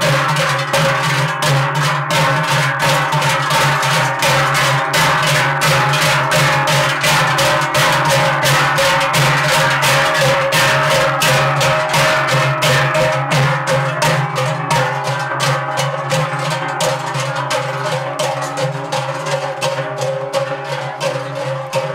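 A group of Swiss Trinkler (Trychler) swinging large cowbells in step as they march, clanging in a steady rhythm of about three strokes a second over a sustained ringing drone from the many bells. The clanging eases a little near the end.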